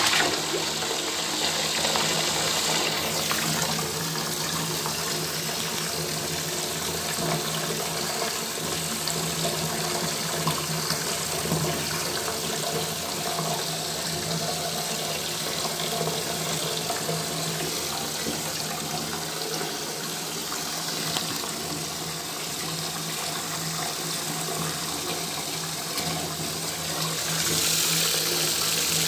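Tap water running into a bathtub: a steady, unbroken splashing rush. It turns brighter and hissier near the end.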